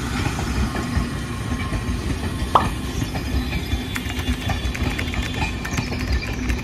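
Passenger train running on the track: a steady low rumble with scattered small clicks, and a brief squeal about two and a half seconds in.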